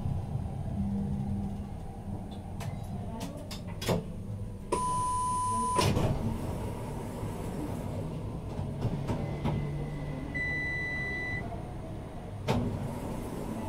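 Tram standing still with its onboard equipment humming low and steady, broken by a few sharp clunks. About five seconds in a single steady electronic beep sounds for about a second, and a shorter, higher beep follows about ten seconds in.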